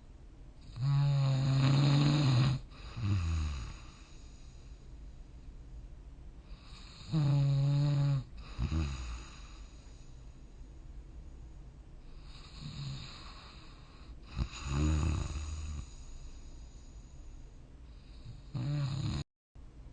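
A sleeping person snoring: a loud, droning snore roughly every six to seven seconds, each followed by a shorter snore falling in pitch.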